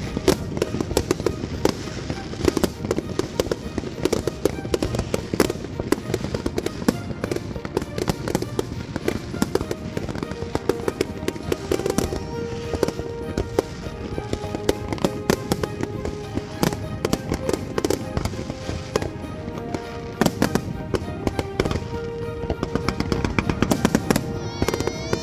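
Aerial fireworks display: a dense, rapid run of bangs and crackling from shells bursting overhead. Music with held notes plays along from about halfway through.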